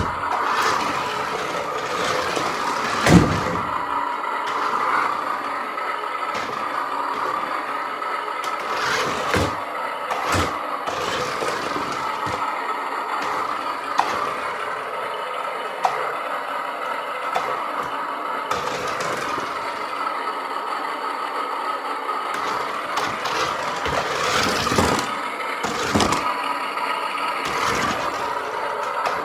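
New Bright Hot Wheels radio-controlled monster truck driving about on a tile floor: the steady whine of its electric drive motor, with knocks and rattles from its plastic body and big tyres, the loudest knock about three seconds in.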